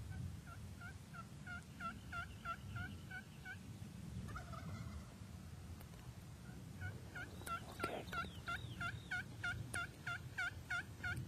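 Turkey yelping: two long runs of evenly spaced yelps, about three to four a second, with a short pause between them. The second run is louder, and a few sharp clicks come just before the middle of it.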